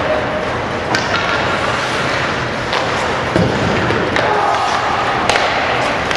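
Ice hockey play in a rink: a steady wash of skate and arena noise broken by about five sharp clacks and thuds of sticks, puck and boards, with faint distant voices.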